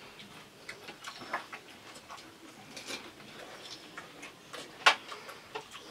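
Crisp pani puri shells cracking and being crunched while eaten: scattered small clicks and crackles, with one sharper crack about five seconds in.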